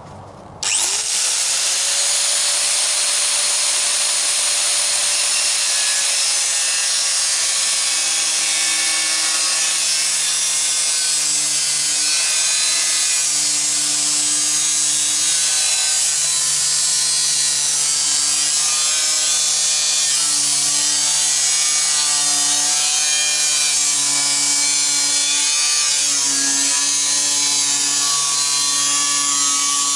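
Electric power tool spinning up about a second in and running continuously with a dense hiss and shifting higher tones, cutting into the sheet metal of an 18-litre square tin can.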